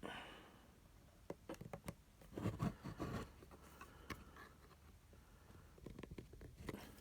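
Faint clicks and handling noise from the plastic case of an electric scooter charger being worked apart by hand, with a busier stretch of scraping and knocking a little before halfway.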